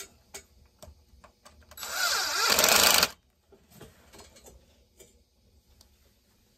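Cordless drill-driver running in one burst of a little over a second, starting about two seconds in and cutting off sharply, its pitch wavering as it spins under varying load.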